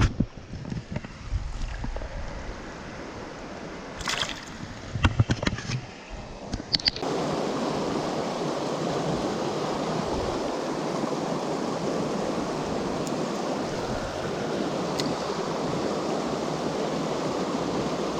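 Fast river current rushing steadily. For the first seven seconds it is fainter with a few sharp clicks and knocks, then about seven seconds in it suddenly becomes louder and stays an even rush.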